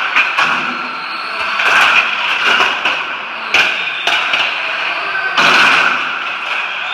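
A pack of radio-controlled streetstock cars racing on a wooden track: a steady high whir of motors and wheels, with repeated sharp knocks as cars hit the wire-and-post fence and each other.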